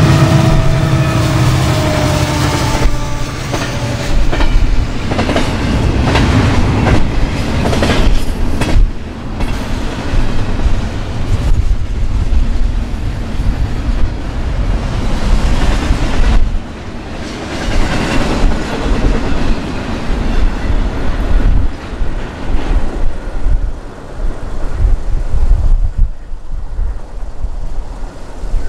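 A Union Pacific double-stack container train passing at track speed. The trailing diesel locomotives' engines go by over the first few seconds, their tones dropping in pitch. Then the long string of well cars rumbles past, with the wheels clacking over the rail joints.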